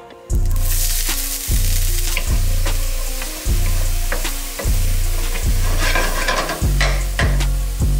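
Diced onion dropped into a hot nonstick frying pan on a gas burner sizzles suddenly about a quarter second in, then keeps frying loudly while a wooden spoon stirs and scrapes it around the pan.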